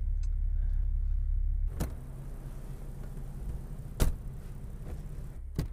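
Steady low car engine rumble heard from inside the cabin, with three sharp clicks, the loudest about four seconds in.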